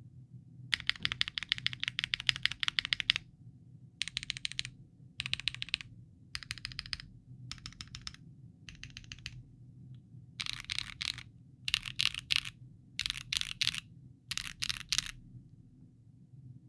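Typing on a Bakeneko 60 mechanical keyboard with a POM plate, Tecsee Bocchi linear switches and GMK Norse keycaps: keys clacking in quick runs separated by short pauses. The longest run comes about a second in, and the typing stops a little before the end.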